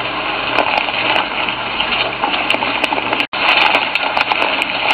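German Shorthaired Pointers scuffling with a bobcat they have pinned in brush: a steady, harsh rushing noise of the struggle, with faint clicks, cut by a brief dropout a little over three seconds in.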